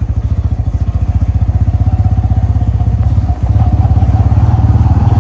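Bajaj Pulsar N160 motorcycle's single-cylinder engine running as the bike is ridden, with steady, even exhaust pulses that grow slightly louder, briefly dipping about three and a half seconds in.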